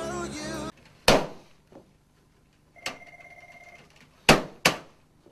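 Background music cuts off early on, followed by a few sharp knocks, two of them close together near the end, and a short steady beep-like tone about three seconds in.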